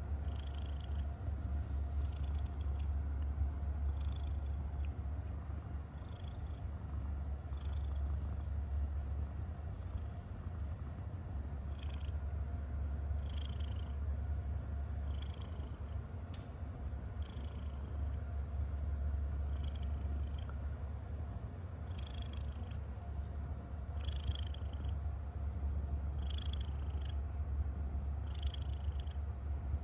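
Domestic tabby cat purring steadily while being stroked on the head, a low continuous rumble: the purr of a contented cat.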